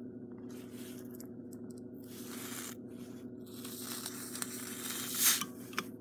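A 12-volt immersion beverage heater, its element hot from running on a car's cigarette-lighter socket, sizzling and crackling in irregular bursts of hiss as water boils off it, with a louder burst about five seconds in.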